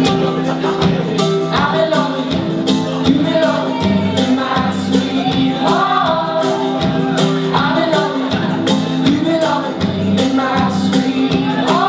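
A live band playing a song, with a singer over held keyboard chords and a steady drumbeat.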